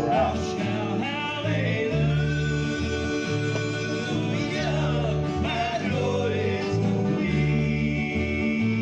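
Country gospel song playing: a passage between sung lines, with guitar over a bass line.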